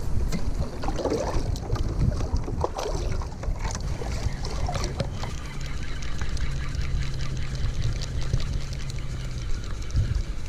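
Wind rumbling on the microphone, with a steady low drone underneath that fades out near the end, and scattered small ticks.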